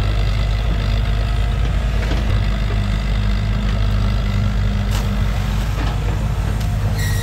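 Sumitomo S160 excavator's diesel engine running steadily at close range while the machine digs wet mud, with a couple of brief clicks or knocks about five seconds in and near the end.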